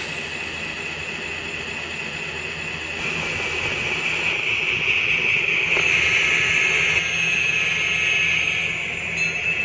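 N scale model train running with a Tomix track-cleaning car, its decoder-controlled vacuum motor giving a steady high whine that grows louder about three seconds in.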